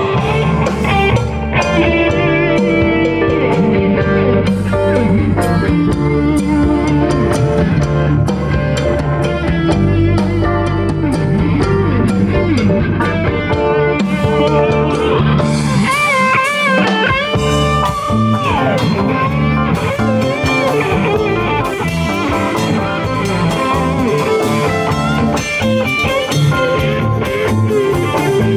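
Live band playing an instrumental passage on electric guitars, bass guitar and drum kit. From about halfway through, a lead electric guitar plays a solo of bent, wavering notes over the band.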